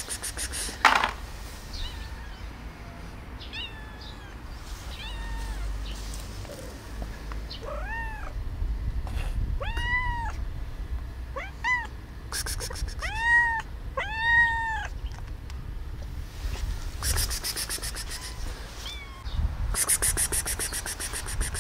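Black-and-white cat meowing over and over: a run of short meows that rise and fall in pitch, loudest and closest together in the middle. Short harsh hisses break in a few times, most strongly near the end.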